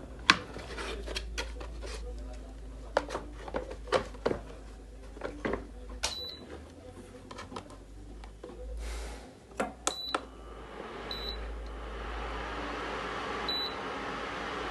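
Induction cooker giving several short, high single-pitch beeps, with clicks and knocks of handling and button presses in the first half. A steady whirring starts about ten seconds in, as of the cooker's cooling fan running.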